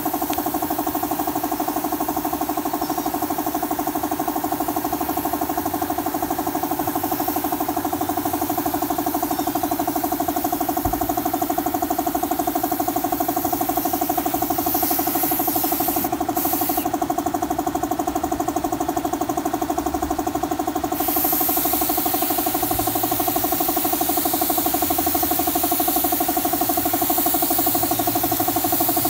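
Air compressor running with a steady, fast-pulsing hum, feeding a cup-type spray gun whose compressed air hisses as the wood finish is sprayed.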